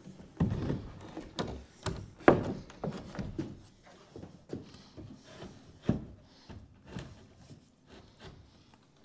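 Irregular wooden knocks and scraping as a pine jamb-extension frame is handled and pushed into a door opening. The loudest knock comes about two seconds in.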